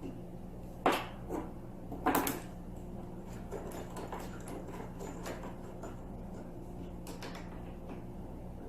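Knocks and taps of a bolt and Allen wrench being worked against the foosball table's panels as the end panel is bolted on: two sharp knocks about a second and two seconds in, then fainter taps, over a steady low hum.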